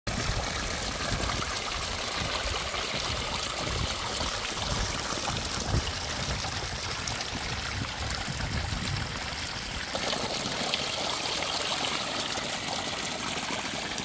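A thin stream of spring water falling and splashing steadily into a shallow sandy pool.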